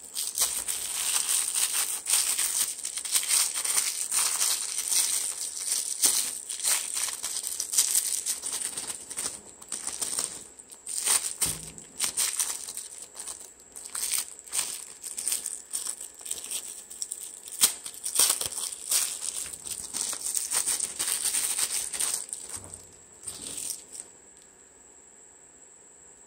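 Thin clear plastic bag crinkling and crackling as hands pull a wrist strap out of it. The crackling is dense and uneven and stops near the end.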